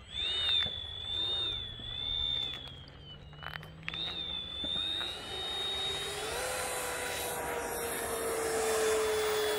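High-pitched whine of an Avanti 80 mm electric ducted fan RC jet on the runway, its pitch dipping and rising with throttle changes. About six seconds in, it spools up to full power for the takeoff run, with a rushing sound building.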